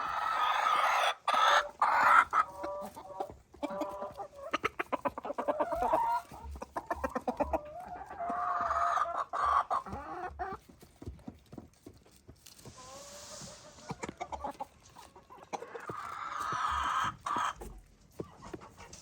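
Chickens clucking and calling in several separate bouts, with a quick run of short clucks a few seconds in.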